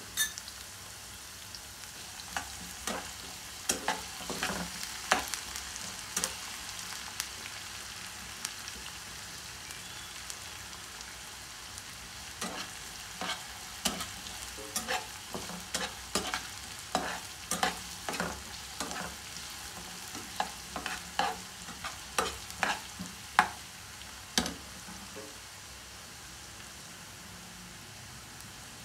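Diced potatoes and onion sizzling in hot oil in a nonstick frying pan, with a spatula clicking and scraping against the pan in repeated bouts as they are stirred. The stirring stops near the end, leaving the steady sizzle.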